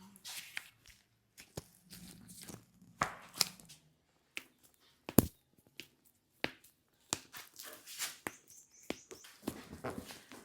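Hands shifting and rubbing on skin and clothing, a series of soft clicks and rustles, with one sharp, loud crack about five seconds in: the neck joints popping under a chiropractic neck adjustment.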